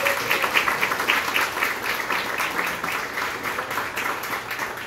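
Audience applauding: many people clapping at once in a dense, steady run that eases a little near the end.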